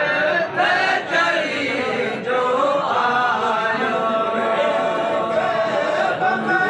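A group of voices chanting together in long, wavering held notes.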